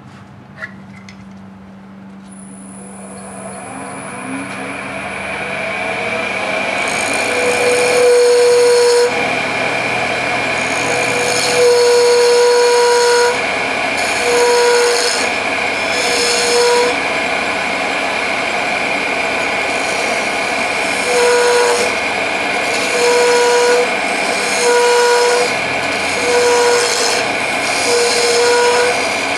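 Wood lathe spinning a walnut blank, the running sound building over the first several seconds, then a turning tool cutting a tenon in about a dozen short repeated passes, each pass with a steady pitched ring over the hiss of the cut.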